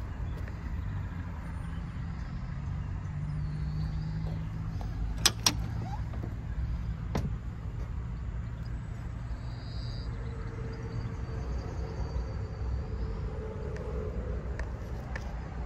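Steady low rumble of motor vehicles, broken about five seconds in by two sharp clicks close together and a third a couple of seconds later: the convertible's door latch being opened.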